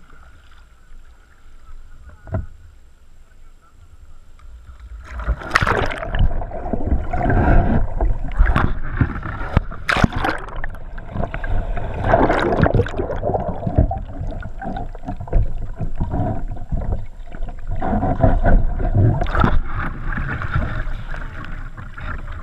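Kayak roll: a few seconds of calm with a single knock, then from about five seconds in heavy splashing as the kayak goes over. Muffled rushing and bubbling water follows while the deck camera is under the surface, and the splashing goes on as the kayaker rolls back upright.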